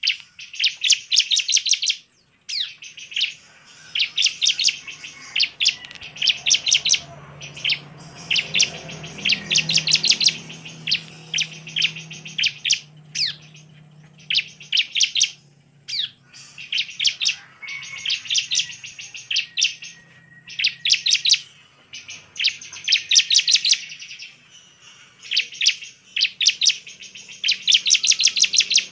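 Bar-winged prinia (ciblek) in full song: bursts of rapid, sharp chirping notes about a second long, repeated every one to two seconds, with single quick slurred notes between the bursts.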